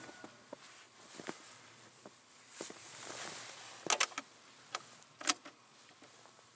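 Scattered clicks and knocks of things being handled in the tractor's open metal box. The loudest are a quick cluster about four seconds in and a sharp click a little after five seconds.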